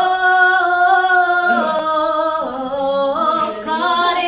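A woman singing solo into a handheld microphone, holding long notes that step down in pitch about a third of the way through, then move between lower notes.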